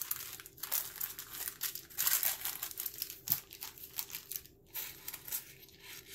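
Small clear plastic bag of spell candles crinkling as it is handled, a dense run of small crackles that thins out about four and a half seconds in.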